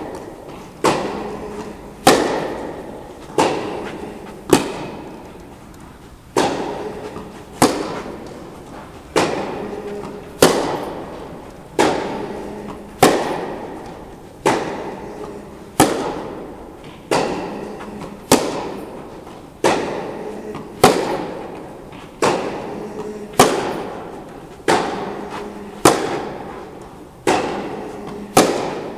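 Tennis balls struck by rackets in a steady baseline rally, with a sharp pop about every 1.2 seconds. Each hit rings on in the reverberant indoor tennis hall.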